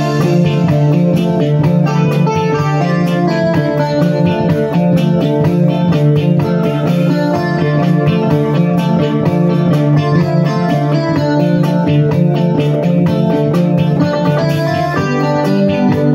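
Instrumental tune played on an electronic keyboard, with a guitar-like voice and a continuous run of notes over steady low accompaniment.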